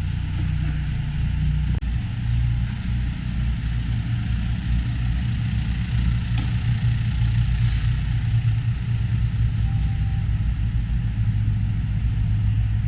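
Large tractor diesel engine idling steadily with a low, even tone.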